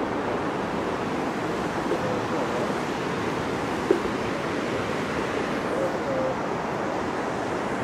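Steady rushing of a river's white water in the canyon far below, with one light tap about four seconds in.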